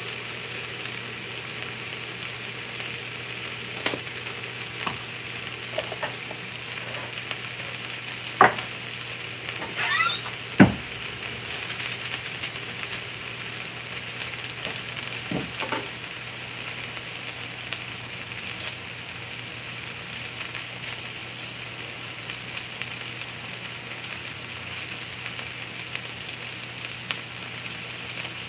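Chopped vegetables frying in a pan of oil, a steady sizzle, with a few sharp knocks and clinks of kitchen utensils, the loudest about eight and eleven seconds in.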